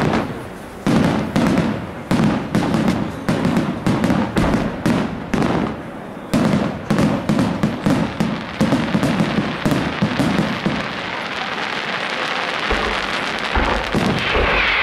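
Aerial fireworks going off in a rapid barrage of sharp bangs, several a second, thinning out near the end into a steadier crackle with only a few bangs.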